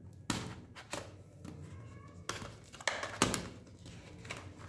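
A small cardboard mouse box being handled and its seal worked open with a thin tool: irregular sharp taps and clicks of the tool and fingers on the cardboard, with faint scraping between them.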